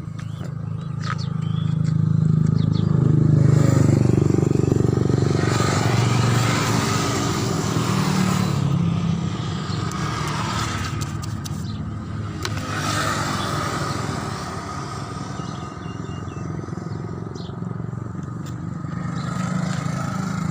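An engine running steadily, with a low hum that swells a few seconds in. Two spells of rushing noise come over it, one around the middle and one a little later.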